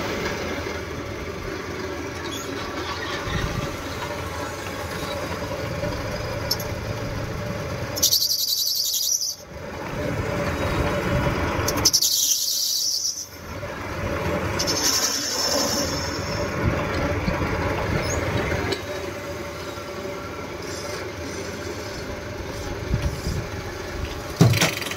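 Metal lathe running with a steady mechanical hum while a cutting tool turns brass parts, with short spells of high-pitched cutting noise about eight, twelve and fifteen seconds in. A sharp knock near the end.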